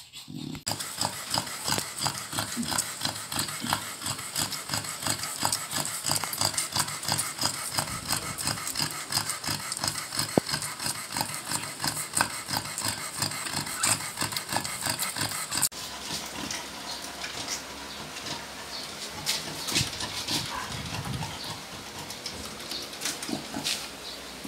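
Newborn chow chow puppies nursing, a dense run of quick little squeaks, grunts and suckling sounds, a little softer after a break about two thirds of the way through.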